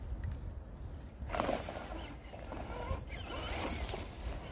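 Dry leaf litter and pine needles crackling and rustling under a Traxxas TRX-4 RC crawler climbing over tree roots, starting about a second and a half in, over a steady low rumble.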